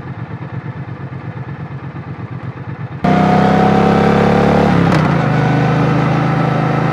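Triumph Bonneville T120's 1200 cc parallel-twin engine idling with an even, low pulsing beat. About three seconds in the sound cuts to the bike under way, the engine louder with wind noise. The engine note drops once, at a gear change, about two seconds later.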